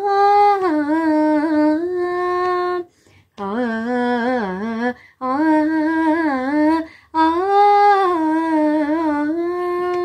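A girl's voice singing a wordless, unaccompanied vocal passage in four long phrases with short breaths between, the pitch bending and sliding through ornaments and ending on a long held note.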